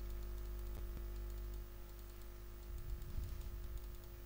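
Faint, scattered clicking and light tapping at a computer, with a few soft low thumps a little before the end, over a steady electrical hum.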